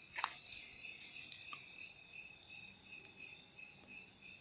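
Night chorus of crickets and other insects: a steady, high-pitched shrilling with no break, with one faint click shortly after the start.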